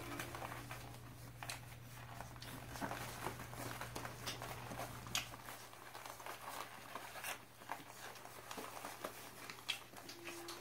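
Puppy pads crinkling and rustling as four-week-old puppies shuffle and nurse under their mother, with scattered small clicks and scuffs, over a steady low hum.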